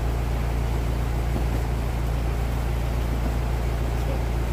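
Truck engine idling: a steady, unchanging low rumble.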